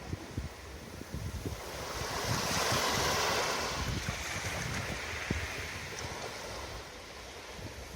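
Ocean waves breaking on the shore, one wave swelling about two seconds in and then washing out, with wind buffeting the microphone.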